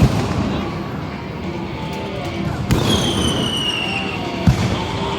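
Fireworks going off: a bang at the start, another bang about two and a half seconds in, then a falling whistle lasting about a second and a half, and a sharp crack near the end.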